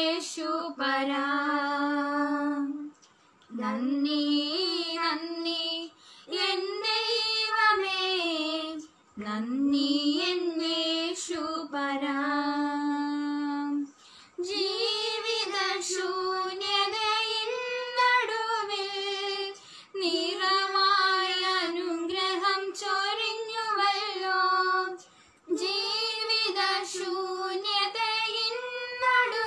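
Two young women singing a Malayalam Christian worship song together, unaccompanied, in phrases of a few seconds with short breaths between. The melody moves higher about halfway through.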